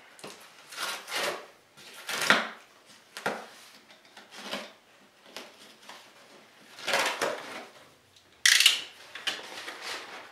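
A blade slitting packing tape and scraping along a cardboard mailer in several short strokes, then a sudden louder rip about eight and a half seconds in as the taped cardboard is torn open.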